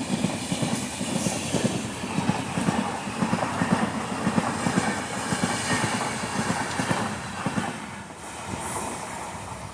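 Express passenger train coaches running past over the rails, the wheels clattering steadily over the joints. The clatter dies away in the last couple of seconds as the train passes.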